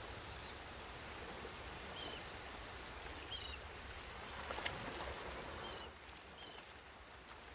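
Faint beach ambience: calm sea washing on sand as a steady soft hiss, with a small bird giving short chirps about every second or two. A few faint clicks come about halfway through.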